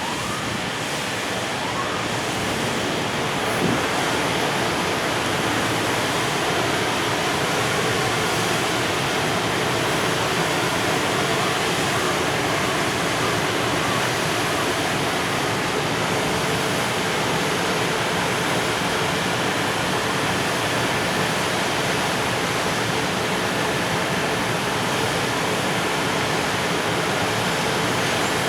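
A freight train's container wagons rolling past, a steady rushing of wheels on rail, with one faint knock a few seconds in.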